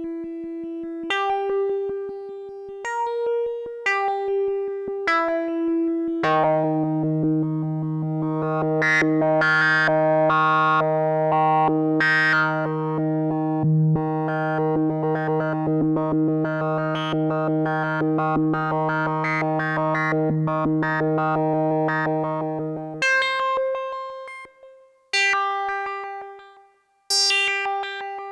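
Behringer Odyssey duophonic analog synthesizer played live. It starts with a line of single held notes, each a second or so long. Then a low note is held for about seventeen seconds under a second, higher voice. Single notes with short gaps return near the end.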